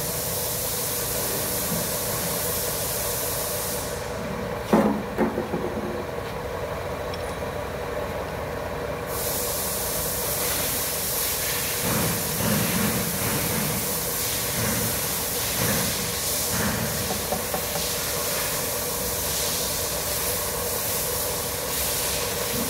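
Steady mechanical hum with a constant hiss, and a brief clatter of knocks about five seconds in.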